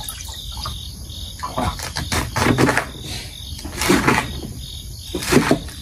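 Night insects, crickets, chirping steadily in the background, with several short rustles and knocks of food and utensils being handled on a table.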